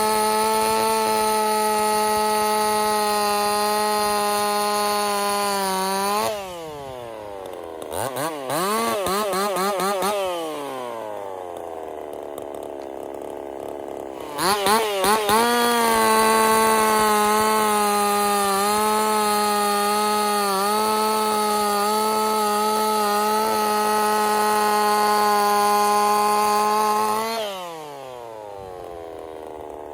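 Ported Husqvarna 50 two-stroke chainsaw, with a Partner 5000 top end and a 372 carburetor, held at full throttle in a cut for about six seconds, then dropping to idle with a few quick throttle blips. About halfway through it revs up again and runs flat out with a steady high note for some twelve seconds, then falls back to idle near the end.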